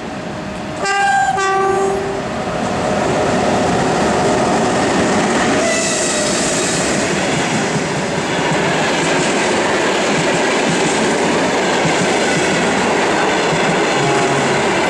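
EP1M electric locomotive gives a short horn blast about a second in, then runs past at speed with its passenger coaches: a steady loud rush with wheels clattering over the rail joints.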